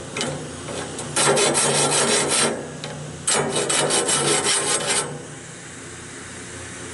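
A sharpening cutter is drawn along the face of a Wood-Mizer bandsaw blade tooth, cleaning up its 10-degree angle. After a brief scrape come two long rasping strokes, each about a second and a half, then only a low steady hum remains.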